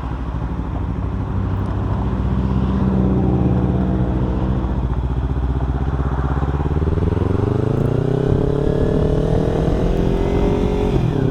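Kawasaki Ninja 300 parallel-twin engine running under way, holding a steady pitch and then revving up from about six seconds in, with a sudden drop in pitch near the end as it shifts up. Wind rushes over a microphone that has no wind guard.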